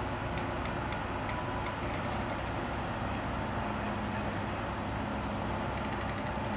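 Steady rumble of heavy vehicle engines running, with faint regular ticking in the first couple of seconds and a low hum coming in about four seconds in.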